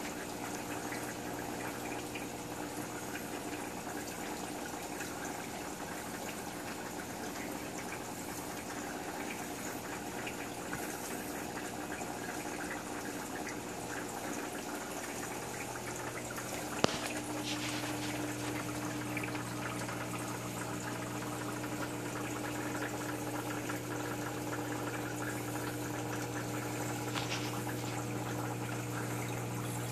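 Saltwater reef aquarium's circulation: water running and splashing steadily over a steady pump hum. A single click comes about seventeen seconds in, after which the hum grows a little louder.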